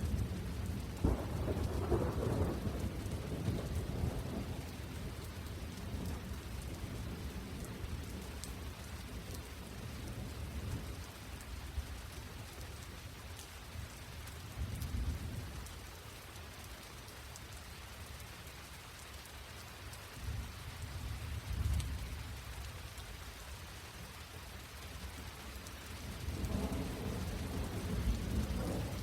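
Steady rain falling, a continuous hiss, with low rolling rumbles of thunder swelling several times: near the start, around the middle and near the end.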